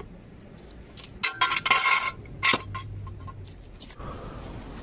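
Steel jack stand and trolley jack clinking and rattling as the raised car is let down. A cluster of metallic clinks comes about a second in, then a single sharp click.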